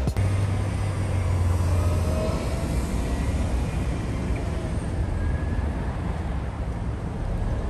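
Steady vehicle traffic noise with a low rumble, louder in the first couple of seconds.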